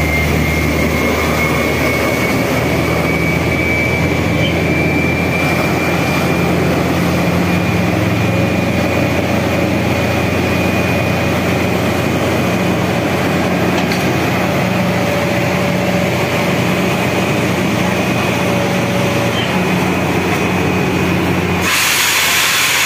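Truck-mounted borewell drilling rig running steadily while drilling, an engine drone under a steady high whine. Near the end a sudden loud hiss of air cuts in.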